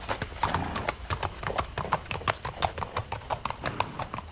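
Carriage horses' hooves clopping on cobblestones, a quick, uneven run of several hoofbeats a second.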